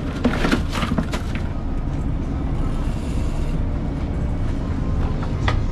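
Steady low rumble of a boat under way, with clattering in the first second or so as a gaffed fish goes down onto the ice in a cooler. A single sharp knock near the end is the cooler lid shutting.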